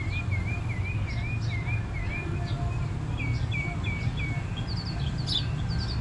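Small songbirds chirping: a quick warbling phrase repeated about twice a second for the first two seconds or so, then scattered short chirps, over a steady low rumble.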